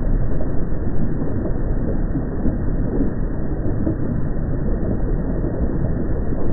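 Steady, deep rumbling noise from a volcano field recording, with no distinct events and nothing heard above the low and middle range.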